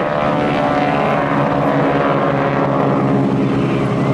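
Boeing Stearman biplanes' radial engines and propellers droning steadily.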